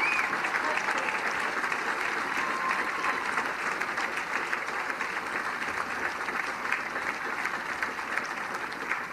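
Large outdoor audience applauding, a dense steady clapping that slowly fades.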